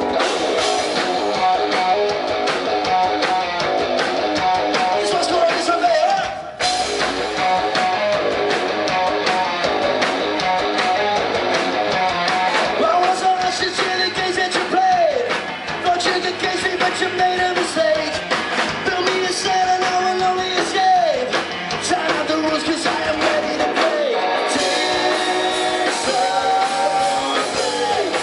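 A rock band playing loud music led by electric guitar, with bending guitar or vocal notes that slide down several times. There is a brief break about six seconds in before the band comes back in.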